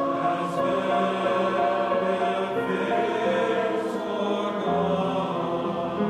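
A choir singing in several parts, holding sustained notes that change pitch every second or so.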